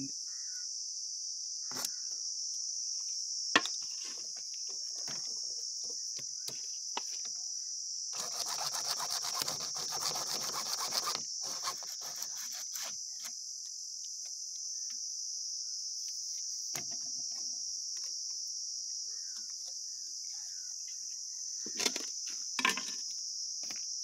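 A steady, high chorus of crickets runs throughout. Near the middle, for about three seconds, a PVC water pipe is sawn through with a dense rasping sound. A few sharp knocks from handling the plastic pipe and tee fitting come early on the third second and twice near the end.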